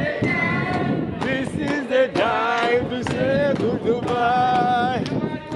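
Singing, with long held notes that bend in pitch, over a steady beat of sharp claps about twice a second.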